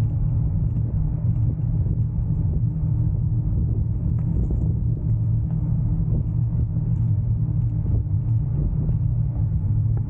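Bicycle rolling along: a steady low rumble of tyre noise and vibration, with a faint steady hum above it.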